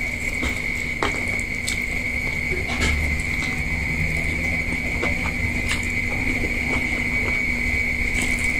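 Eating glass noodles: a metal fork and spoon clicking now and then against a plate, with chewing and noodles being sucked into the mouth. A steady high-pitched whine runs underneath throughout.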